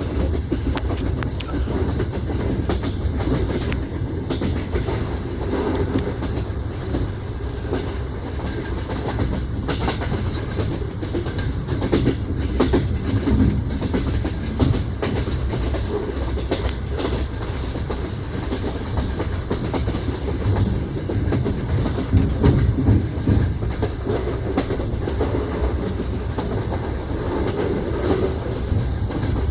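Clickety-clack of a moving passenger train's wheels over the rail joints, heard from inside an open-berth sleeper carriage: a steady low rumble with a running stream of clicks, louder in a couple of stretches.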